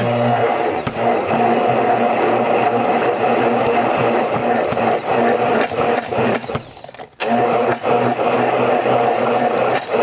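Stick blender running in a glass beaker of thick, creamy hair conditioner, blending in the preservative and whipping air into the cream; it drops out briefly about seven seconds in, then runs on.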